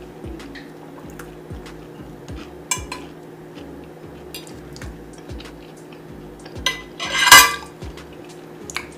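Cutlery clinking and scraping against a plate while eating, in many small clicks, with a louder, noisier clatter about seven seconds in.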